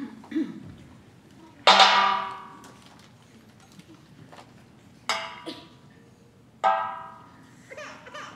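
Sparse stage music: three sharply struck notes, each with a bright ringing tone that dies away over about a second, the loudest a little under two seconds in, with a couple of faint knocks at the very start.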